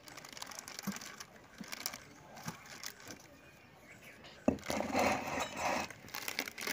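Light rustling and small ticks of a plastic sheet as a rice papad is pressed flat under a round pressing board, then a sharp knock about four and a half seconds in as the board is set down, followed by loud crinkling of the plastic sheet being handled.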